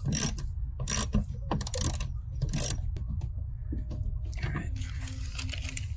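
Ratchet wrench clicking in short, irregular strokes as it backs out T15 Torx screws from the wheel-well trim.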